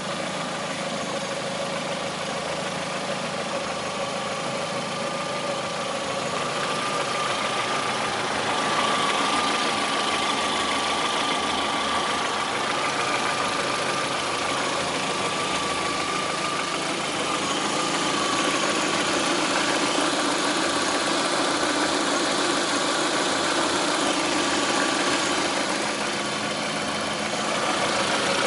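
Lada Priora's VAZ-21126 1.6-litre 16-valve four-cylinder engine running steadily, a little louder from about eight seconds in. It is recorded for a knock in the engine that the owner is concerned about.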